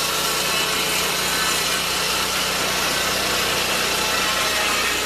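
Lucas swingblade portable sawmill running steadily, its engine driving the circular blade as it saws lengthwise through a log.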